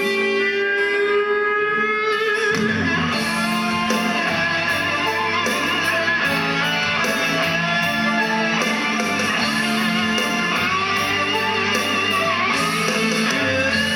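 Instrumental stretch of a song with a guitar lead; a fuller backing with bass and a steady beat comes in about two and a half seconds in.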